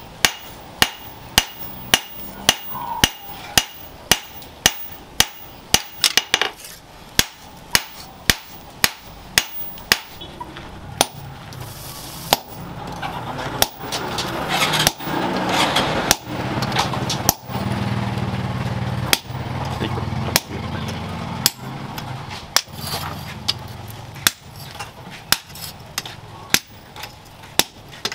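Hand hammer striking red-hot leaf-spring steel on a steel post anvil, sharp ringing blows about two a second. Around the middle the blows thin out while a low steady hum rises, and the regular hammering resumes near the end, now on a hot-cut chisel held in tongs against the blade.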